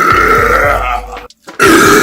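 A long, loud burp that breaks off about a second and a quarter in; after a brief silence another long, loud burp starts.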